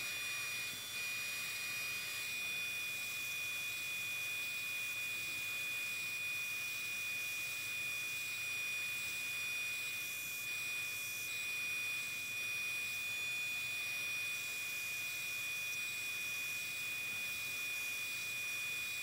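Bench belt and disc sander with a 100 × 914 mm belt running with a steady whir and hiss and a thin, steady high whine, as a small softwood block is sanded to a rounded shape against the belt.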